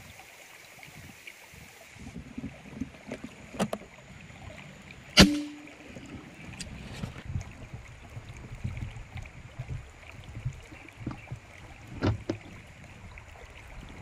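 An air rifle fires once about five seconds in: a single sharp crack followed by a brief low ring. A few fainter clicks and handling knocks come before and after it, over a steady rush of flowing water.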